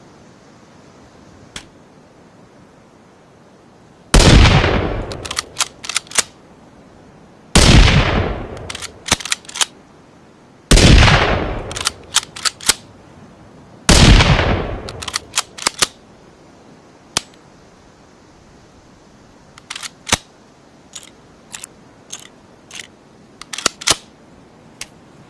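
Four rifle shots about three seconds apart, each with a long ringing tail and followed by a quick run of sharp clicks. It is a sound effect blending a Ruger American Rifle with a rimfire rifle. Near the end comes a scattered series of further clicks.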